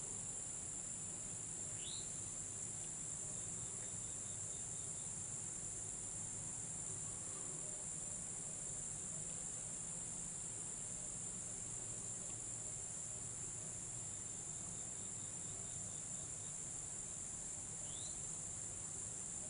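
Steady, high-pitched chorus of insects droning without a break, with a short rising chirp about two seconds in and again near the end.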